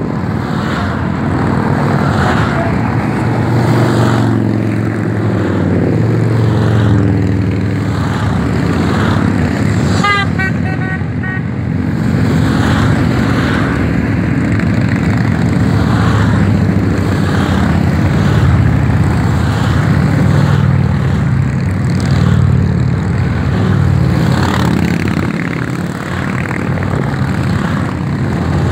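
A procession of Harley-Davidson V-twin touring and cruiser motorcycles riding past one after another, their engines swelling and fading as each bike goes by. About ten seconds in, a horn gives a quick string of short toots.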